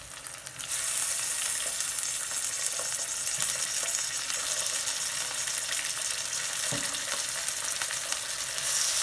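Chicken wings going into hot oil in a pan: the sizzle jumps up about a second in, then frying runs on steadily, getting louder again near the end.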